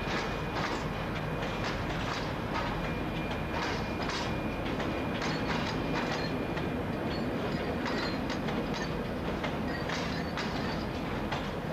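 Long freight train of covered hopper wagons rolling past, its wheels clicking over rail joints in an uneven stream of clacks over a steady rumble. A faint steady high whine runs through roughly the first half.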